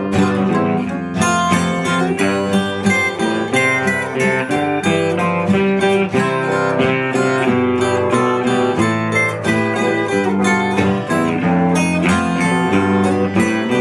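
Acoustic guitar strummed steadily in an instrumental passage of a live song, with no singing.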